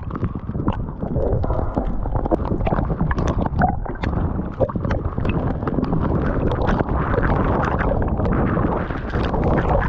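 Heavy tropical rain striking the sea surface in a squall: a dense patter of many small drop hits over a steady low rumble of wind on the microphone and choppy water washing around the camera at the waterline.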